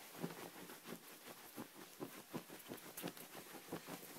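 Faint, irregular soft patting and tapping, several times a second, with a sharper tap about three seconds in.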